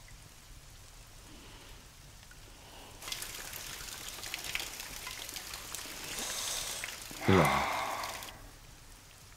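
Heavy rain pouring, faint at first and then coming in loudly about three seconds in, full of small pattering ticks. About seven seconds in, one brief louder sound with a quickly falling pitch cuts through the rain.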